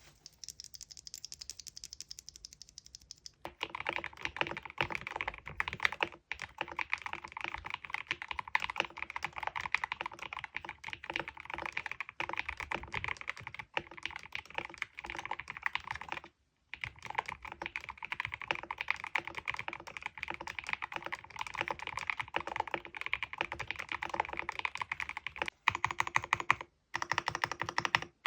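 Fast typing on an FL-Esports OG104 mechanical keyboard with Gateron EF Curry linear switches: a continuous rattle of keystrokes, faint for the first few seconds, then much louder. The typing breaks off briefly about two-thirds of the way in and again near the end.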